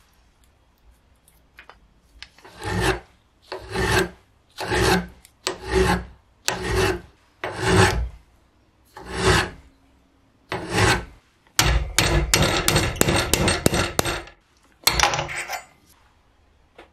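A hand file rasping on the rusty steel rivet head of a hand drill's crank arm, filing it down: about eight slow strokes roughly a second apart, then a quick run of short strokes, then one more stroke.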